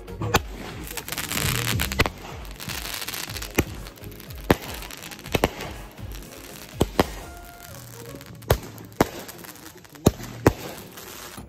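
Consumer aerial fireworks going off: about a dozen sharp bangs and pops at irregular intervals over a steady crackling hiss.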